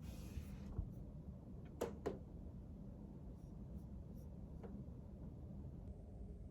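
Small handling sounds in a quiet room: a brief paper-like rustle, then two sharp clicks close together about two seconds in, and a few faint ticks after.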